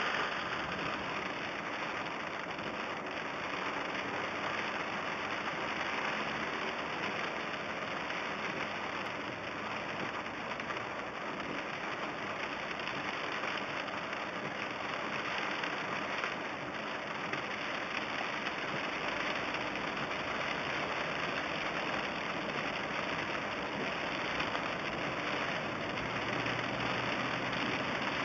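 Heavy rain falling steadily on a car's roof and windshield, heard from inside the cabin, with the car's engine humming low underneath.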